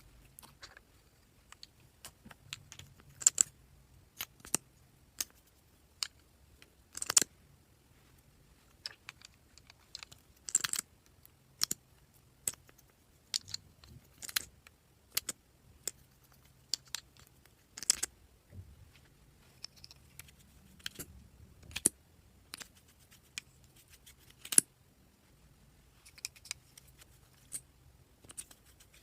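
Slime being mixed and worked by hand, making sharp, sticky clicks and pops at irregular intervals.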